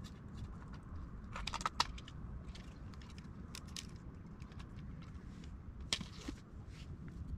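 Light clicks and a short rattle of fishing tackle being handled, the rattle clustered about a second and a half in and a sharper click about six seconds in, over a low steady rumble.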